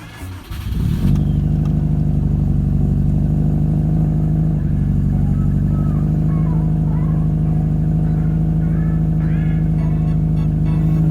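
Subaru WRX STi's turbocharged flat-four, with an aftermarket exhaust, catches about a second in and runs at a steady idle.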